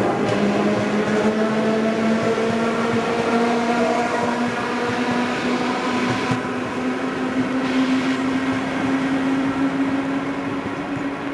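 Suburban electric multiple unit pulling away from the platform: its traction motors whine in a steady tone that rises slowly in pitch as the train gathers speed, over the noise of wheels on the rails.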